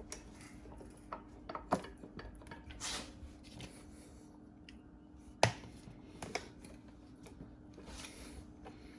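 Hands working on a small plastic mower carburetor: scattered clicks, taps and rubbing as the parts are handled and fitted, with a sharp knock about five and a half seconds in. A faint steady hum runs underneath.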